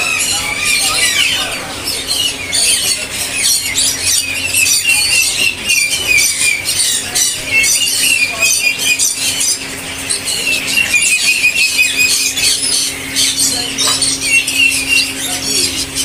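Dense chorus of many small caged finches chirping and twittering at once, with short repeated trills. A steady low hum runs underneath.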